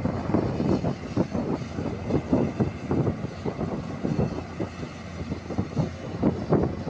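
Hyundai 210-7 crawler excavator's diesel engine running steadily, with an uneven low rumble.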